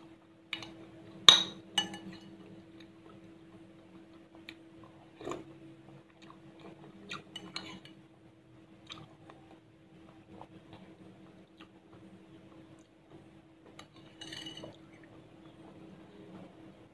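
Metal spoon clinking and scraping against a ceramic bowl during eating: scattered sharp clinks, the loudest about a second in, with a few more through the middle and a short cluster near the end.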